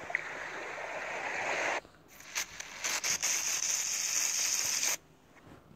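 Surf washing on a beach, swelling and then cutting off sharply about two seconds in, followed by about three seconds of crackling hiss that stops abruptly.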